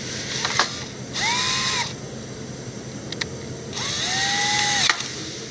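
Cordless drill driving the terminal screws of a magnetic contactor, in two short runs about two seconds apart. Each run is a whine that rises as the motor spins up and then holds steady. A few sharp clicks come between the runs.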